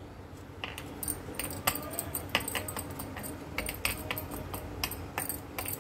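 Bangles on a wrist clinking lightly, an irregular scatter of small clicks, as a hand presses a ball of dough flat on a wooden chopping board.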